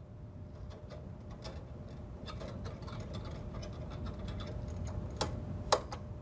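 Light clicks and scrapes of small metal parts as gloved hands push the spring-loaded heat emitter assembly of a belt splice press forward to relieve its tension, with two sharper clicks about five seconds in and near the end.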